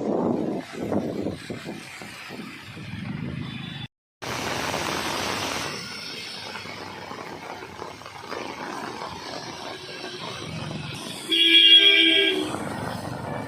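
Street traffic in the rain: vehicles passing with a steady wet hiss, and a vehicle horn honking once for about a second near the end. The sound drops out briefly about four seconds in.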